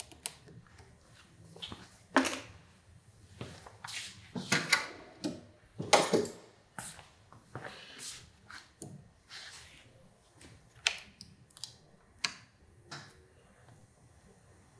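Scattered clicks, scrapes and rubbing as hands work a rubber motorcycle handlebar grip and handle a pair of snips, which are set against the grip near the end to cut it off. The loudest knocks come about two seconds and six seconds in.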